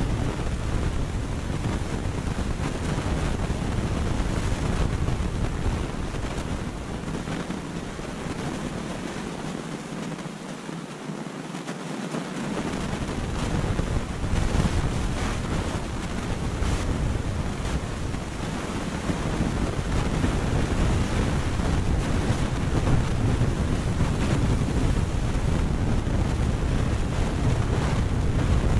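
Wind buffeting the microphone as a steady low rumble. It eases about seven seconds in, nearly drops away for a couple of seconds, then picks up again.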